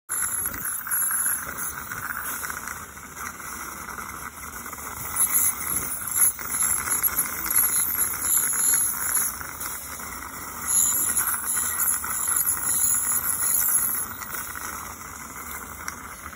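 Dental equipment hissing during scaling of tartar from the lower front teeth: a steady hiss with louder, high-pitched squealing stretches that come and go several times.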